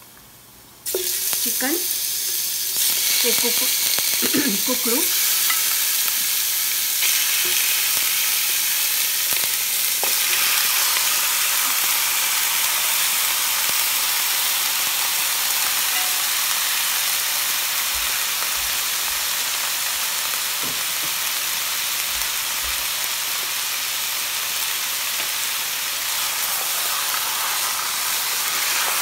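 Chicken pieces searing in hot oil in a pot to start the gravy, sizzling steadily; the sizzle starts suddenly about a second in.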